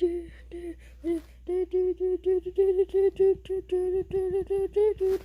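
A child's voice singing a rapid string of short syllables on one steady note, about four or five a second: a monotone sung beatbox-style rap. A few notes come first, then a short pause before the steady run.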